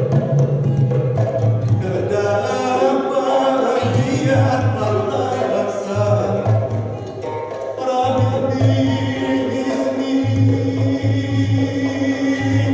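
Gamelan ensemble playing: ringing bronze kettle gongs and metallophones over a repeated deep pulse, with a barrel hand drum.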